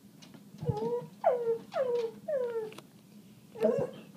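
Dog whining in a quick run of short, falling whimpers, four in about two seconds and another near the end, with a low bump just before the first: the dog is agitated at a puppy outside the door.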